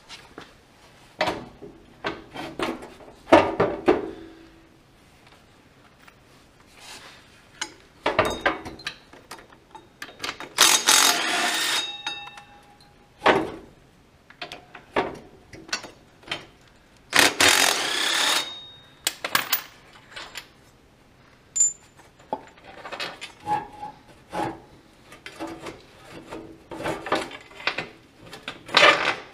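Hand tools working bolts on a garden tractor's rear axle housing: a ratchet and socket on the bolts, with irregular metal clicks and clanks of tools and parts. Two longer spells of ratcheting and metal scraping, each lasting a second or two, come about a third and two thirds of the way through.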